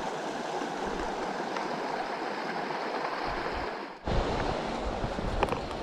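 Mountain creek water rushing over rocks, a steady noise. About four seconds in the sound drops out for a moment and comes back with a low rumble added and a few faint clicks.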